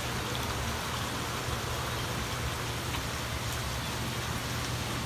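Chicken pieces, potatoes and carrots sizzling steadily in a frying pan over a gas burner, an even hiss with a low steady hum underneath.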